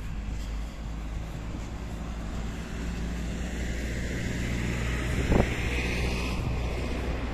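Road traffic: a car passing on the adjacent road, its tyre noise swelling louder over a few seconds and fading near the end, over a steady low rumble of wind on the microphone. One brief thump about five seconds in.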